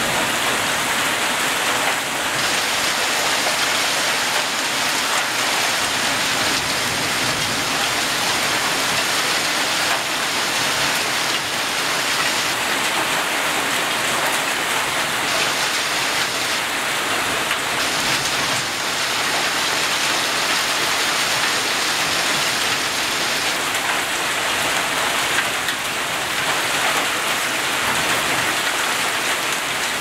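Heavy shower of hail mixed with rain falling: a steady, even hiss with no let-up.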